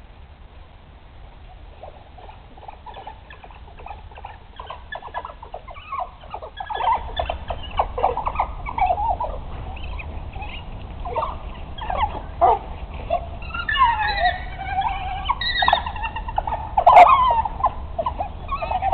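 A pack of African wild dogs twittering at feeding time, many short, high chirps overlapping. The calls thicken and grow louder about six seconds in, with some gliding squeals near the end.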